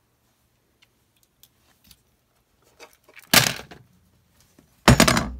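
Small tools and a plastic Lightning connector being handled and worked at: a few light clicks and taps, then two loud scraping clatters about a second and a half apart.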